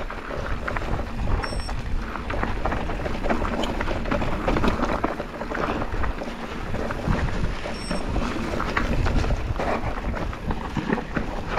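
Focus SAM2 enduro mountain bike descending a dry, rough singletrack: tyres rolling over dirt and stones, with constant rattles and knocks from the bike over the bumps. Wind buffets the microphone throughout.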